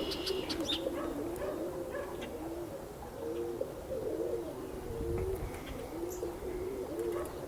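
Domestic pigeons cooing, a string of low, repeated coos that rise and fall in pitch.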